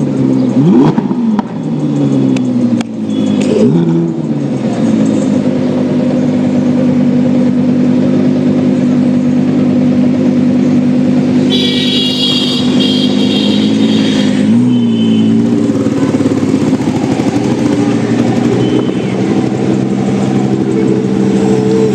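Lamborghini Huracán Evo Spyder's V10 engine revved up and down several times, with a few sharp exhaust crackles, over the first four seconds. It then runs at a steady note. A high-pitched tone sounds over it for about two seconds around the middle.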